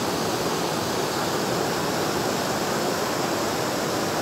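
Muddy floodwater rushing steadily across a dirt road, a continuous even wash of water noise.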